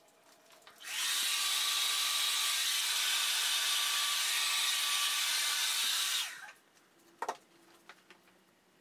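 Hand-held hair dryer switched on about a second in, running steadily with a whine over its rush of air as it blows wet acrylic paint across a canvas, then switched off after about five seconds and briefly winding down. A single short knock follows.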